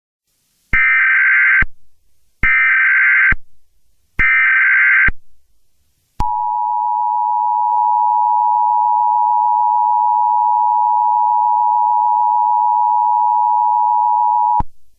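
Emergency Alert System signalling: three short bursts of SAME header data, a harsh electronic screech about a second each, followed about six seconds in by the steady two-tone EAS attention signal, held for about eight seconds.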